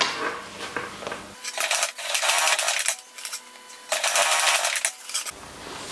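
Industrial sewing machine stitching two short runs about a second each, backtacking a strap onto a heavy padded fabric panel.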